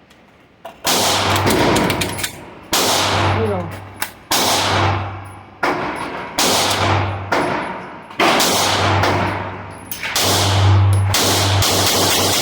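Tisas PX9 Gen 3 9mm pistol fired repeatedly in a mag dump, loud sharp shots in uneven strings, each followed by a long echoing tail. The shots come closer together after about ten seconds.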